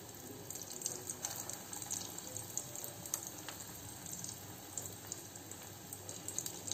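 Hot oil sizzling as batter-coated potato balls (batata vada) deep-fry in a kadhai: a steady sizzle with frequent small crackles.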